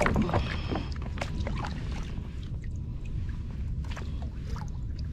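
Kayak being paddled: water splashing and dripping off the paddle, with scattered small clicks and knocks, over a steady low rumble.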